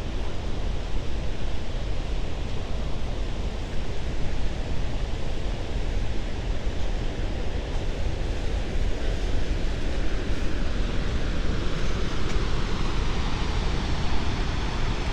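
Steady rushing of the Great Falls of the Potomac River: whitewater pouring over and between rocks.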